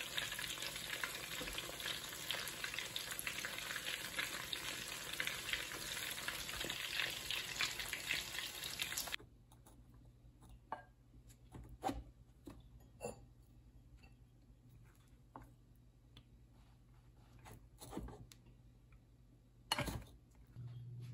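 Breadcrumb-coated pork cutlets shallow-frying in hot oil: a dense, steady sizzle with fine crackling, which cuts off suddenly about nine seconds in. After that it is quiet, with scattered soft scrapes and taps as cooked rice is scooped out of a rice cooker's inner pot, and a sharper knock near the end.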